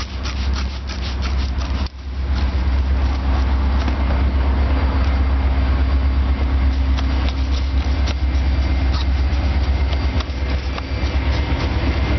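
Water from a hose spraying onto the heat pump's electronic air cleaner screen and fiberglass pads as they are rinsed. It is a steady, loud rush with a heavy low rumble, broken briefly about two seconds in.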